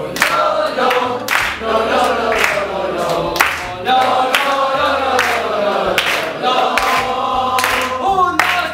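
A group of young voices singing together in chorus, with hand claps on the beat about once a second.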